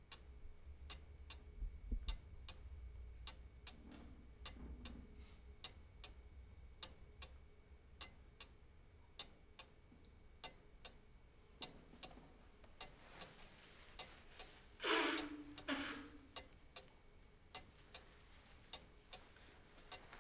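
Mantel clock ticking steadily, about two ticks a second. About three quarters of the way through there is a short breathy noise, twice, louder than the ticks.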